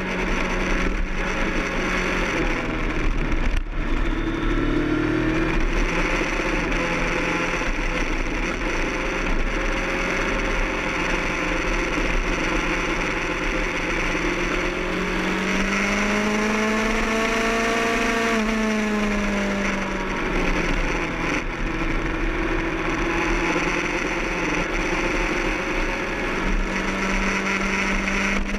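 Kawasaki ZX-10R's inline-four engine running at track speed under steady wind noise on the onboard microphone. The engine pitch rises and falls gently with throttle through the corners, most clearly one rise and fall about two-thirds of the way through.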